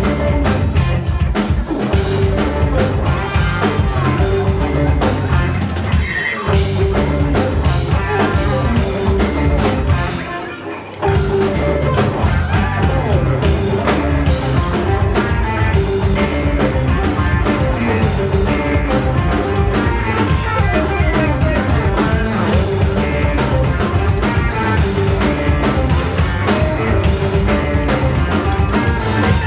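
Rock band playing live, with a drum kit and guitar over a steady bass-heavy groove; the music briefly drops away about ten seconds in and then comes back in at full level.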